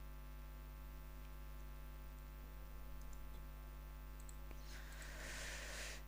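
Steady low electrical mains hum with a few faint mouse clicks; a soft hiss swells near the end.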